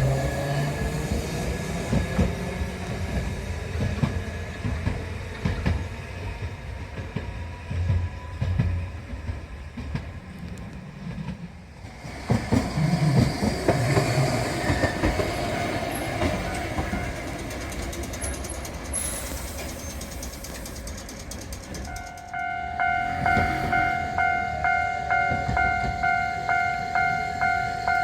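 Rail vehicles rumbling and clattering over the tracks at a level crossing. About five seconds before the end, a Japanese level-crossing warning bell starts ringing, about two rings a second, signalling that a train or tram is approaching.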